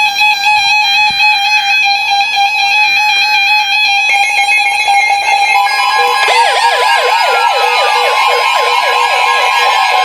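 Weather radio receivers sounding their alert alarms for a Severe Thunderstorm Warning broadcast. Steady electronic tones are joined about six seconds in by a fast warbling siren-like alarm and a steady high tone, the alert that comes before the spoken warning.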